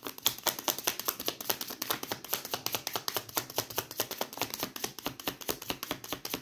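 A deck of oracle cards being shuffled by hand: a quick, even run of card clicks and snaps, many a second.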